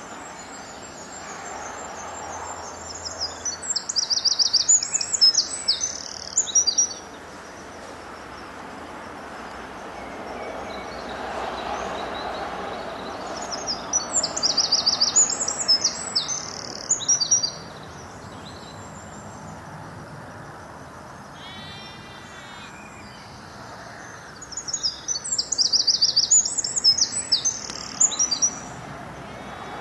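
A songbird singing three loud, high, rapid phrases of song with trills, each a few seconds long and about ten seconds apart. A short run of quick chirps comes between the second and third phrases.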